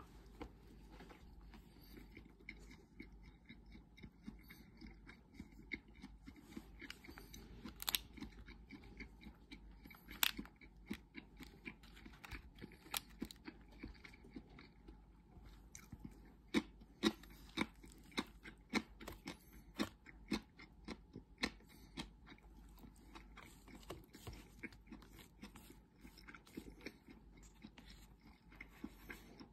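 A person eating from a plastic bento tray with wooden chopsticks: quiet chewing, with irregular sharp clicks of the chopsticks against the tray, thickest about two-thirds of the way through.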